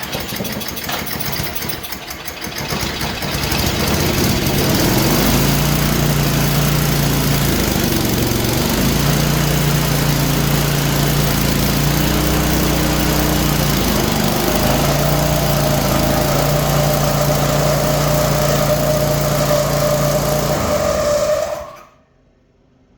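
Craftsman snowblower engine starting and running steadily, its pitch shifting a few times. About two thirds of the way in a steady high squeal joins the engine note, which the mechanic takes for a bad bearing. The engine cuts off near the end.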